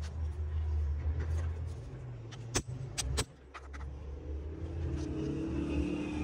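A steady low rumble with three sharp knocks about two and a half to three seconds in.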